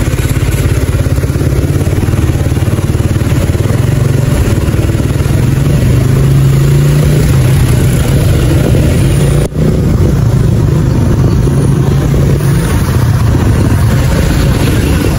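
Motorcycle engine running steadily while riding slowly, its low pulse dominating, with a momentary drop in sound about nine and a half seconds in.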